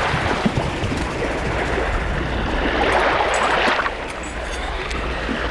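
Waterfront ambience: a steady low rumble under rushes of noise that swell and fade, with a few light clicks about three seconds in.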